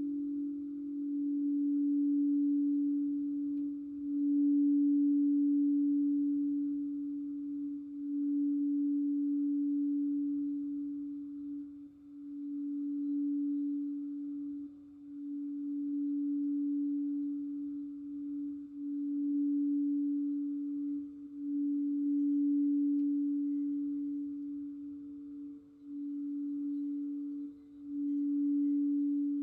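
Crystal singing bowl sounding one steady low tone that swells and eases every few seconds, with a second, fainter higher bowl tone joining about two-thirds of the way through.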